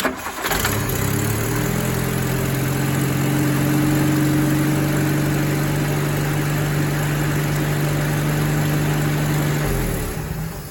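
Rover P4 80's four-cylinder petrol engine starts and idles steadily with a newly fitted spark plug lead, running evenly. It is switched off near the end.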